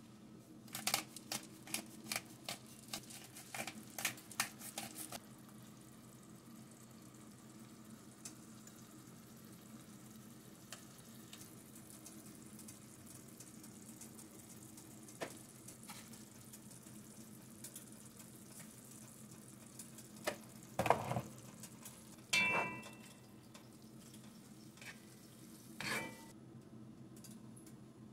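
A wooden spatula stirring and scraping kale around a nonstick pan, a quick run of clicks and scrapes for the first five seconds, over the quiet sizzle of the greens cooking in oil and water. A few separate knocks follow later on, the loudest about three-quarters of the way through.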